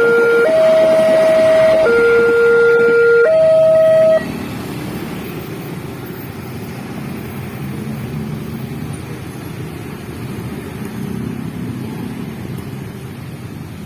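Railway level-crossing barrier alarm sounding a two-tone siren, alternating a higher and a lower note each held about a second and a half, then cutting off suddenly about four seconds in. Road traffic noise carries on after it.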